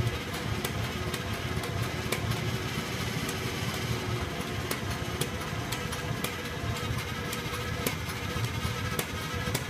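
1948 Farmall Cub's four-cylinder flathead engine idling steadily, running on a newly fitted Pertronix Ignitor electronic ignition.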